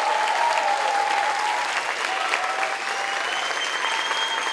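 Theatre audience applauding and cheering after a dance number: dense clapping with long, high held shouts of cheering over it.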